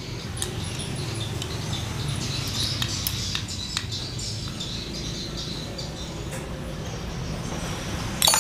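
Small metallic clicks and taps as a thin steel rod is worked against the helical gear and shaft in the aluminium cover of a scooter's final-drive gearbox, with a louder clatter of metal near the end. Faint high chirping goes on in the background.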